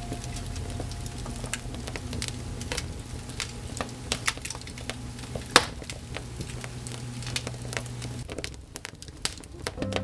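Wood fire crackling in a fireplace: irregular pops and snaps, with one sharp pop about five and a half seconds in.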